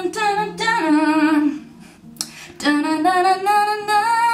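A woman singing two long phrases with a wavering vibrato, the second climbing in pitch.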